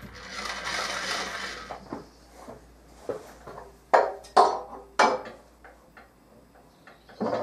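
A rough scraping noise lasting about two seconds, then sharp metallic clinks of steel parts and tools being handled and set down, three loud ones around the middle and another clank near the end.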